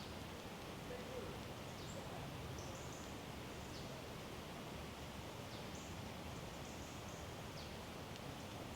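Faint woodland ambience: a steady hiss and low hum, with scattered short, high bird chirps and squeaks throughout.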